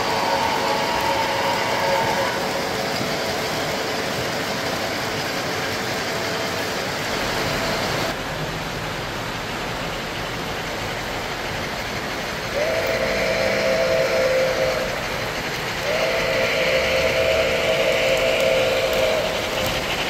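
Electronic steam whistle from a three-rail O-gauge model steam locomotive's sound system, held at the start and then sounding in two long blasts in the second half, over steady running-train noise.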